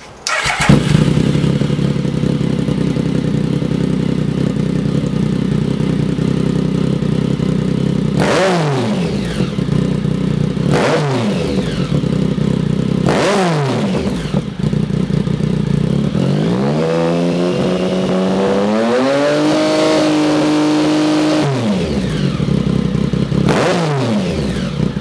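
2013 Triumph Speed Triple's inline three-cylinder engine running through a Lextek CP1 stubby exhaust silencer, idling and blipped in three short revs that rise and fall. It is then held up at higher revs for about five seconds past the middle and blipped once more near the end.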